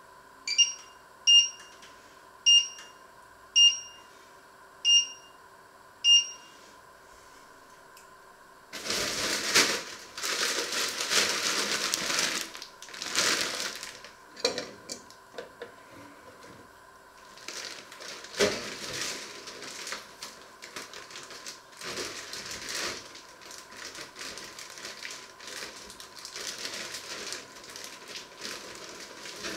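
Six short electronic beeps from a glass-top electric hob's touch controls as they are pressed. Then, from about nine seconds in, a plastic bag crinkling and rustling on and off as it is handled.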